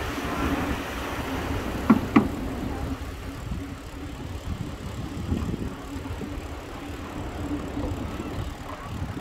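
Bicycle tyres rolling over a wooden-plank boardwalk, a steady low rumble with a faint steady hum, and two sharp knocks about two seconds in.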